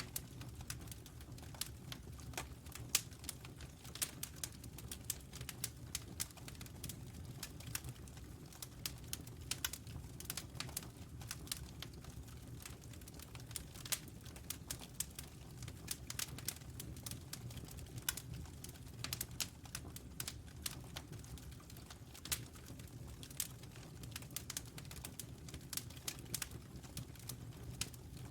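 Wood fire crackling: irregular pops and snaps throughout, over a steady low rumble.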